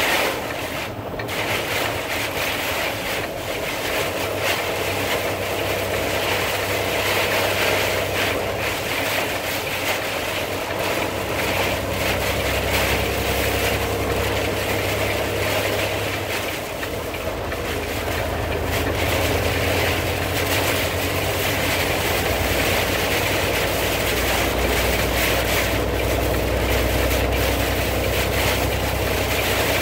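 Steady engine and road noise heard from inside a moving car's cabin. The low engine hum shifts in pitch about twelve and again about seventeen seconds in.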